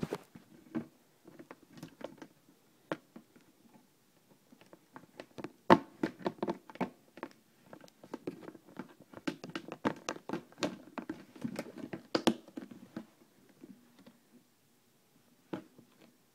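Handling noise: irregular taps, clicks and scraping as the parts of a homemade mister are slipped into their slots, with sharper knocks about six and twelve seconds in.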